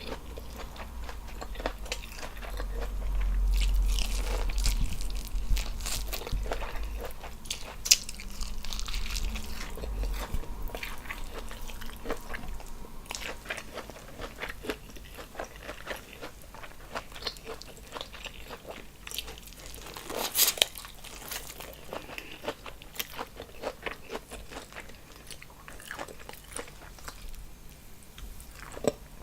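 Close-miked eating of a seafood boil: irregular bites and chewing with many short sharp clicks and snaps, and a low rumble for several seconds near the start.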